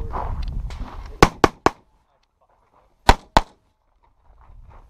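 Competition pistol fired by a USPSA Open-division shooter in two quick strings: three shots about a second in, then a pair of shots about two seconds later. A low rumble comes before the first shots.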